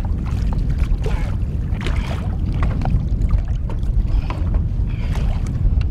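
Wind rumbling on the microphone over water sloshing against a boat's side, with scattered splashes and knocks as a musky is handled in a landing net at the water's surface.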